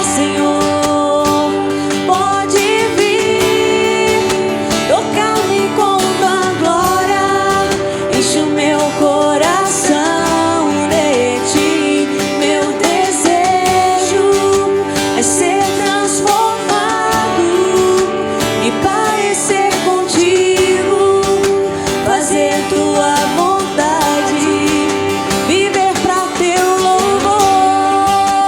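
Live worship band music: acoustic guitars, electric guitar and percussion under a lead melody with sliding, bending pitches.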